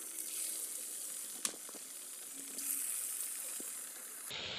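Elephant foot yam (ol) fritter batter deep-frying in hot refined oil in a kadai, sizzling with a steady high hiss. One sharp click about a second and a half in.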